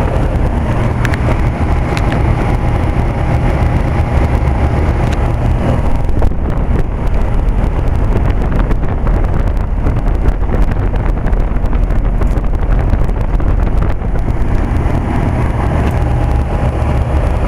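1990 Bryant 5-ton straight-cool central air-conditioner condensing unit running steadily, its compressor and condenser fan making a constant, even noise with a faint steady hum. The unit is working normally.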